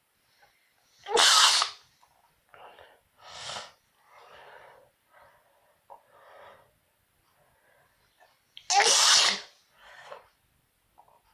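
A person sneezing twice, self-induced: one loud sneeze about a second in and another about nine seconds in, with shorter, fainter breaths and sniffs between.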